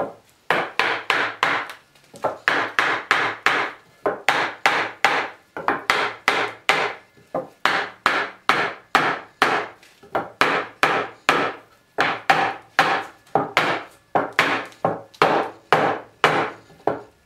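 A hammer tapping repeatedly along the top edge of a pine board, driving a glued, dowelled edge-to-edge joint closed. Quick sharp blows on wood, about four a second, in runs of five or six with short pauses between.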